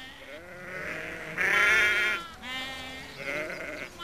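Sheep bleating, several wavering calls one after another, the loudest about a second and a half in.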